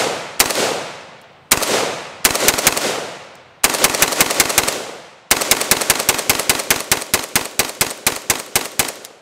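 DPMS Anvil AK-47 rifle firing. A few spaced single shots come first, then quicker groups, then a long rapid string of about five shots a second that stops just before the end. Each shot rings out with a short echoing tail.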